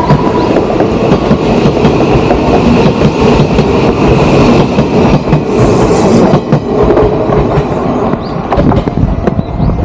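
Odakyu 1000-series electric train passing close by, its wheels clicking over the rail joints under a steady high-pitched tone that fades after about six seconds.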